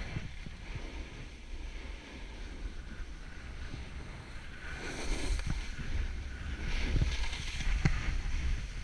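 Wind buffeting the camera microphone while a snowboard slides and scrapes over crusty, wind-packed snow, with louder spells of scraping about halfway through and again later, and a few sharp knocks.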